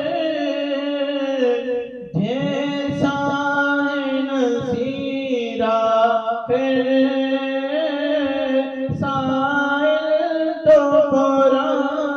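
A man singing a naat, an Islamic devotional poem in praise of the Prophet, unaccompanied into a handheld microphone. He sings long, drawn-out phrases of wavering, ornamented notes, with a short breath between phrases every couple of seconds.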